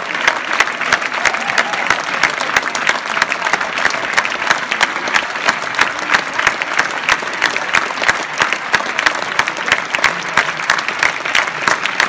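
Audience applauding, a steady mass of hand claps with no let-up.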